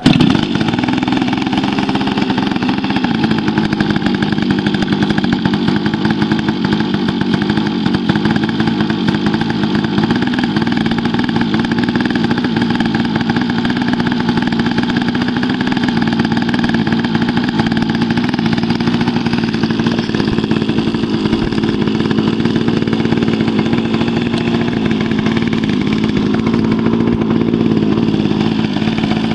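Single-cylinder gas engine of a radio-controlled model airplane catching from a hand-flipped propeller, then running steadily without stopping.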